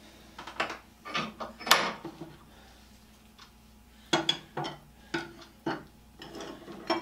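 Short metallic clinks and knocks of steel hand tools and a cut piece of threaded rod being handled on a workbench, about eight separate sounds with the sharpest, brightest clink near two seconds in.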